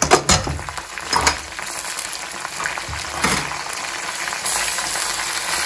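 Raw chicken pieces going into hot oil with browned onions: a few knocks in the first second or so, then a steady sizzle of frying that grows slightly louder about four and a half seconds in.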